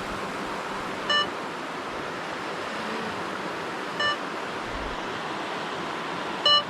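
Drone remote controller giving short pitched beeps, three of them about three seconds apart, over a steady rush of river water.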